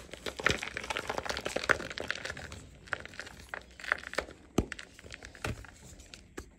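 A block of gym chalk set with cornstarch paste and glitter crumbling and crunching in the hands: dense crackling for the first couple of seconds, then scattered sharp cracks as chunks snap off and crumbs fall.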